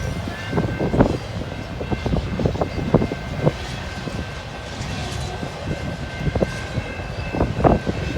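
Freight train cars rolling past, their wheels clacking irregularly over the rail joints over a steady rumble, with faint steady high-pitched ringing tones above.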